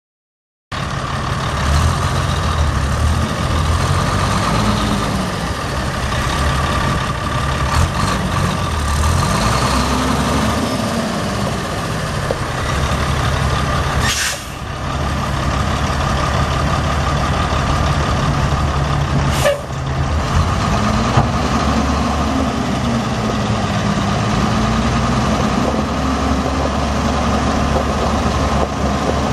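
Cummins L10 10-litre inline-six turbo diesel of a Ford L9000 dump truck running at idle, revved up and let back down several times, with a steady whine over the engine note.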